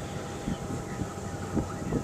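Blizzard wind buffeting the microphone: a low rumble broken by irregular gusty thumps.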